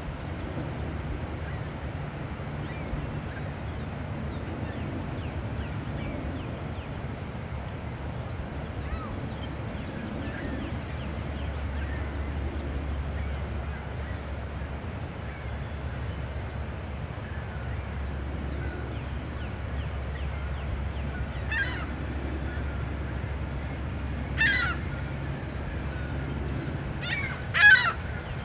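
Birds calling over the water: faint calls throughout, then a few loud short calls in the last seven seconds, the loudest just before the end. Under them runs a steady low rumble.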